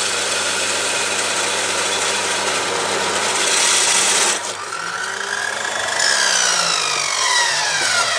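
Yamasu YMS-355A 355 mm abrasive cut-off saw grinding through a square steel tube with a harsh, hissing roar. A little over halfway the cut finishes and the grinding stops abruptly. The motor's whine is then left on its own, falling steadily in pitch as the blade spins down.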